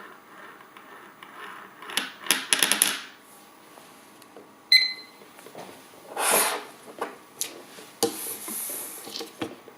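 Small steel spinning top clinking and rattling against a hard surface. There is a quick rattle about two seconds in, a sharp clink with a short ringing tone about halfway, then scattered clatters.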